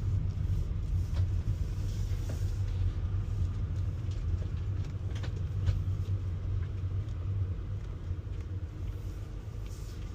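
Steady low rumble of a running vehicle engine, with a few faint clicks scattered over it.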